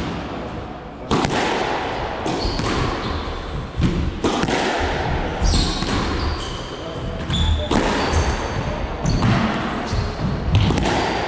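Squash rally: the ball struck by rackets and smacking off the court walls again and again, each hit ringing in the enclosed court, with short high squeaks of shoes on the wooden floor around the middle.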